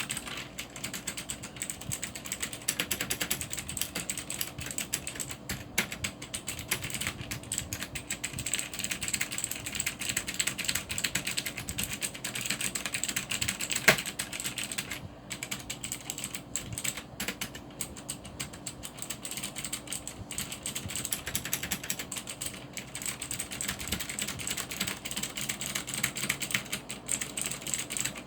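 A Cherry G80-3800 mechanical keyboard with clicky Cherry MX Blue switches being typed on steadily: a rapid, unbroken stream of key clicks. One key strike about halfway through is louder than the rest.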